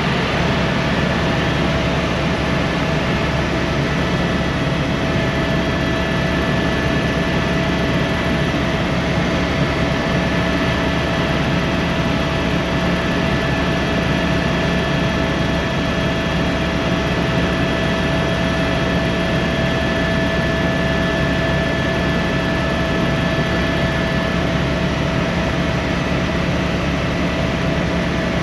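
Helicopter's turbine engine and rotor running steadily in flight: an even rumble with a steady high whine held over it.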